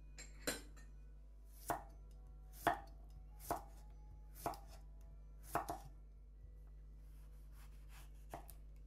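Chef's knife slicing a cucumber on a bamboo cutting board: six crisp knocks of the blade on the board, about one a second. Near the end come fainter, softer cuts through a tomato.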